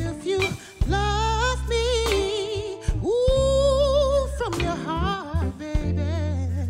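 Live soul band: a male singer holding long notes with vibrato over electric guitar, bass guitar and drums.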